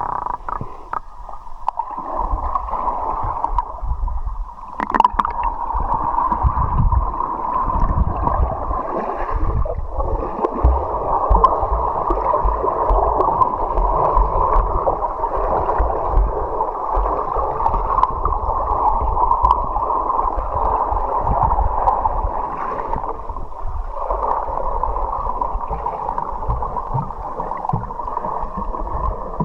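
River water gurgling and rushing, steady and muffled, with irregular low thumps and knocks throughout.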